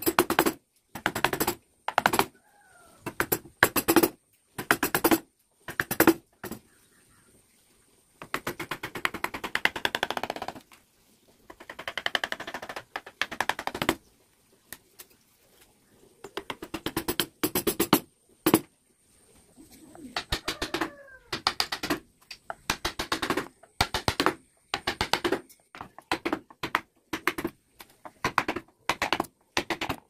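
Carving chisel pushed by hand through wood, each stroke a short crackling cut, about one a second. Two longer scraping passes come about a third of the way in.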